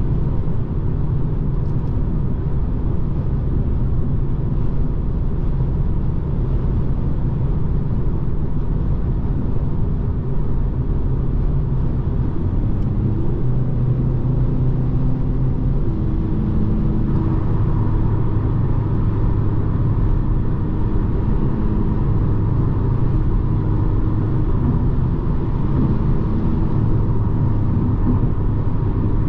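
BMW 220d xDrive's four-cylinder diesel engine and tyres droning steadily at highway cruising speed. The engine note shifts slightly about halfway through.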